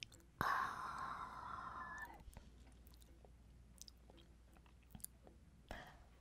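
Snack packaging rustling for about a second and a half as a wrapped chocolate snack is pulled from its cardboard box, then small handling ticks. Just before the end comes a short, crisp bite into a chocolate biscuit stick.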